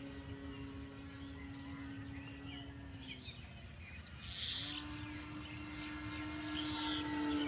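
Electric motor and 12-inch propeller of a radio-controlled foam bush plane droning at a steady pitch, cutting out about three seconds in, then coming back slightly higher and growing louder toward the end. Birds chirp over a steady outdoor background.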